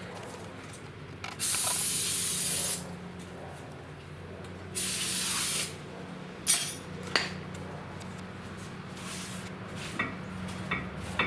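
Aerosol brake cleaner sprayed onto a disc brake rotor in two hissing bursts of about a second or more each. A few sharp metallic knocks follow in the later part.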